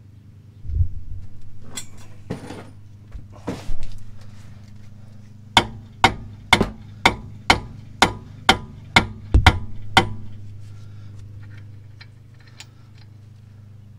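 Rubber mallet striking the end of a 2006 Honda Ridgeline's front CV axle in the wheel hub, to drive the stuck splined shaft back out through the hub. A few scattered knocks come first, then a steady run of about ten sharp blows, about two a second.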